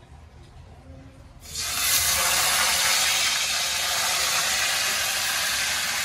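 Hot oil in a wok sizzling as a slab of marinated pork belly goes in; the sizzle starts suddenly about a second and a half in and then holds steady.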